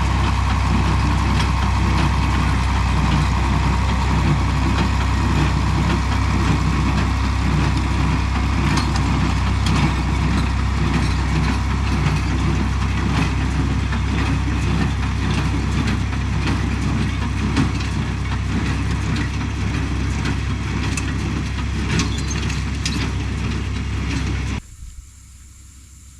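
Tractor engine running steadily at idle, with scattered light clicks over it; the sound drops away suddenly near the end.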